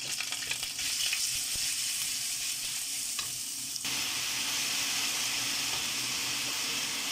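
Garlic and minced pork sizzling in oil in a steel wok, stirred with a wooden spatula. About four seconds in, the sound changes abruptly to a fuller, steady sizzle as water spinach stir-fries in the wok.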